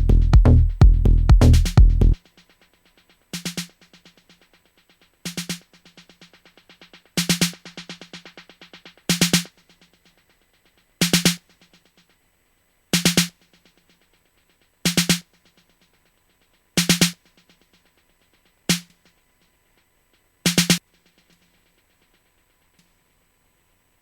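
Electronic dub-techno groove programmed in Maschine, with heavy kick and bass, cuts out about two seconds in. What remains is one short synthesized drum hit repeating about every two seconds, a few followed by faint echo trails, until it stops near the end.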